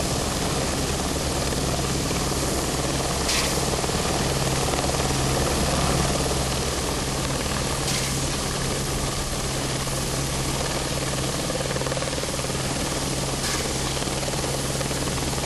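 Helicopter rotor and engine running steadily at a hover. Over it come three short, sharp shots about five seconds apart from the helicopter's IFEX impulse water cannons firing water into a burning building.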